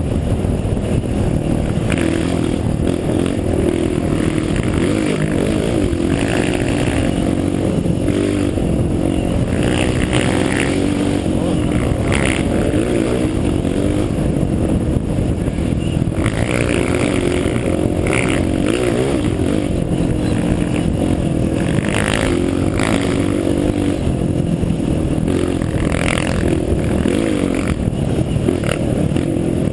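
Off-road vehicle engine running continuously under load, its pitch rising and falling as it revs, with scattered knocks and rattles over the rough ground.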